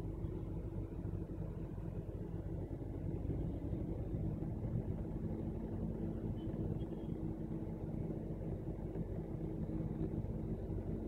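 Car engine running at low, steady revs, heard from inside the car's cabin, with a low traffic hum around it.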